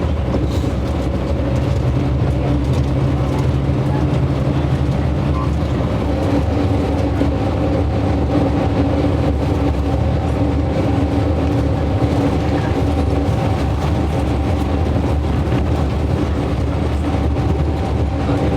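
Tour bus engine and road noise heard from inside the cabin, a steady low drone whose engine note shifts about five seconds in.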